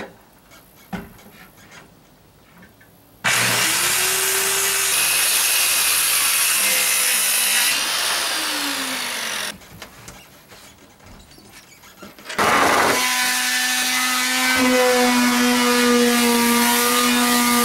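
Handheld electric power saw cutting plywood deck panel in two runs: the motor spins up about three seconds in and cuts for roughly six seconds, then starts again past the middle and runs on with a steady motor hum under the cutting noise.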